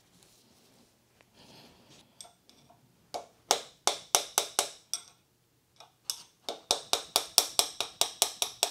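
Ball-peen hammer tapping a steel tube driver to drive a new bearing into the crossfeed housing bore of a cast-iron tool and cutter grinder base. A quick run of about seven sharp metallic taps about three seconds in, a short pause, then a longer run of rapid taps at about five a second.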